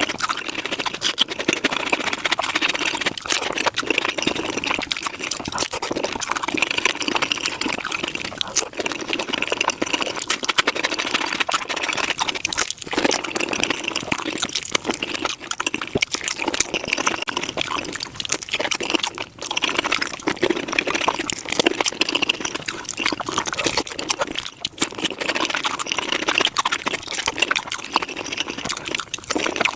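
Eating sounds of tacos being bitten and chewed, played back sped up five times, a dense, unbroken stream of rapid clicks and crackles.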